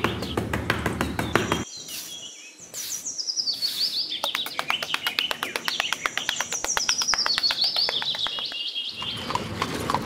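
Birds chirping and trilling, their calls stepping down in pitch. For the first second and a half a small metal trowel scrapes across sand.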